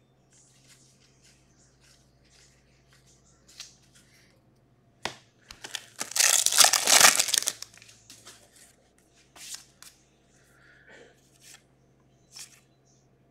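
A Topps Gold Label baseball card pack wrapper being torn open: a loud crinkling tear of about a second and a half near the middle, among faint crinkles and taps as the pack and cards are handled.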